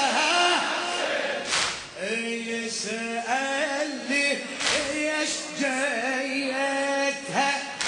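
Male reciter chanting a Shia latmiya (mourning elegy) unaccompanied, with crowd voices joining in. Sharp slaps land every second or so, the mourners' rhythmic chest-beating.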